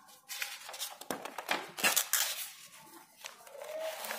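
Paper pages of a spiral-bound notebook being handled and turned: a run of rustles, light scrapes and small clicks.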